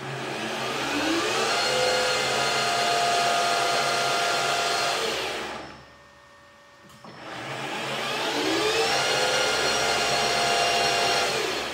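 Precision Matthews PM-1440GT lathe headstock running in H3 (980 RPM), driven by a Marathon E470 3 hp three-phase motor on a Hitachi WJ200 VFD. A whine rises in pitch as the VFD ramps the spindle up, holds steady, then falls away to a stop about five and a half seconds in. It then ramps up again in reverse and winds down near the end, running smoothly without cogging or rattling.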